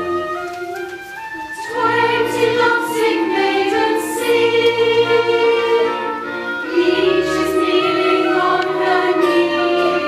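An operetta chorus singing with a small pit orchestra. The orchestra plays alone at first, and the voices come in about two seconds in and carry on together with it.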